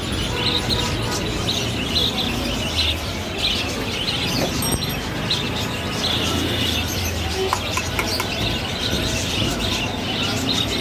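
A large flock of caged budgerigars chirping and chattering all at once: a dense, continuous stream of short high chirps.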